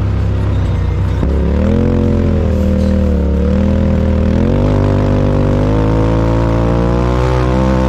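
UTV engine running hard in the sand, its pitch climbing about a second in, dipping and rising as the throttle is worked, then climbing again and holding steady.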